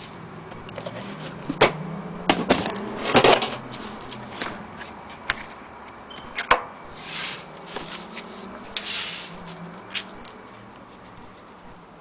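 Handling of a portable gramophone's carrying case as it is turned over and touched: scattered knocks and clicks, a cluster in the first few seconds and a sharp one about halfway, with two brief rubbing or scraping sounds later on.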